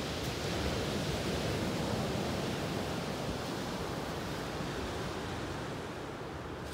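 Sea waves breaking and washing onto a shingle beach, a steady rushing that eases off slowly.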